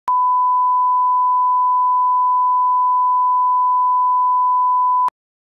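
Steady single-pitch line-up test tone of the kind played with colour bars, starting at once and cutting off suddenly about five seconds in.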